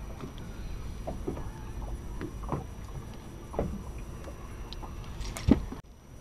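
Small waves lapping and knocking against a bass boat's hull, irregular knocks about once a second over a low rumble of wind and water, with the loudest knock about five and a half seconds in. The sound cuts off briefly near the end.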